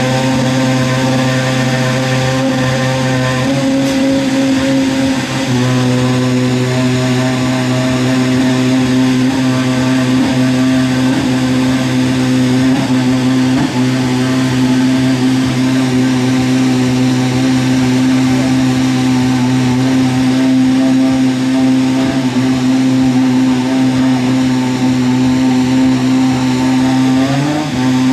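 An engine running at a steady speed for the whole stretch, its pitch holding level, with a short wobble in revs near the end.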